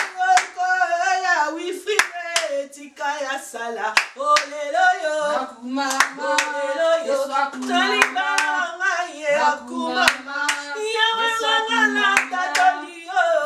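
A woman singing a song with steady hand claps keeping time, about two claps a second.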